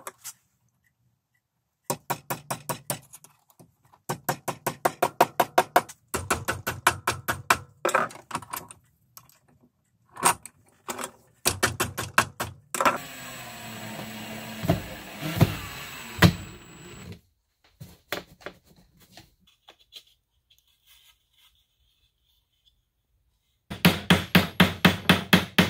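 Rapid light hammer taps on metal held in a bench vise, about five a second, in runs of a few seconds each. About halfway through comes a steady noisy sound lasting about four seconds.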